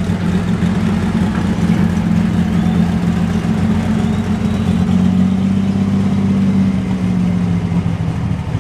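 Limited superstock pulling tractor's engine idling with a low, steady note. The note rises a little about five seconds in and drops back about two seconds later.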